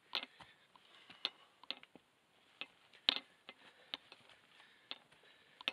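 A hiker climbing a steep, rocky trail: scattered light clicks and knocks of footsteps and backpack gear, irregularly spaced, the strongest about three seconds in.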